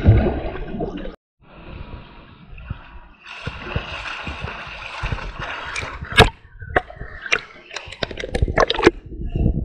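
Pool water splashing and sloshing from a swimmer's arm strokes, heard from a camera at the water line that dips underwater at times. A quick run of sharp splashes comes in the second half.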